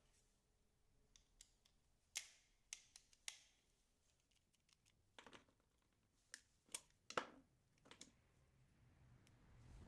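Scattered light clicks and taps, about a dozen at uneven intervals, from small hard parts being handled and fiddled with.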